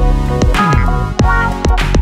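Background music with a steady beat and held synth-like notes, with a falling sweep in the bass about half a second in.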